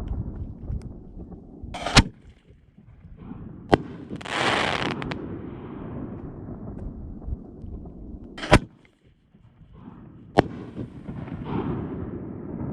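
Canister shell fireworks firing and breaking: four sharp booms spread over the stretch, over a low rumble, with a half-second hiss about four seconds in.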